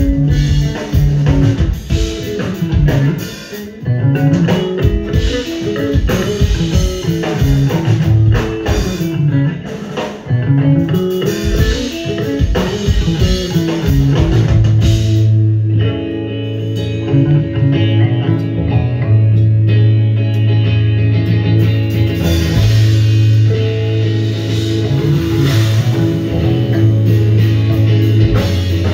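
Live math rock played by electric guitar, electric bass and drum kit. For the first half the guitar and bass run busy, shifting note patterns over the drums; about halfway through the bass settles onto long held low notes under steadier chords.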